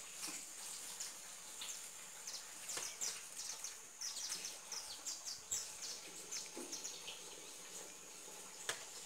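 Small birds chirping in quick, short high notes, busiest in the middle few seconds, over a steady high-pitched insect buzz. A single sharp click comes near the end.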